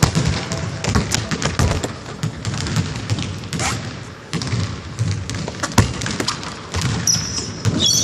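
Basketball bouncing on a hard gym floor, a string of sharp thumps ringing in a large hall, with a few high squeaks near the end from sneakers on the floor.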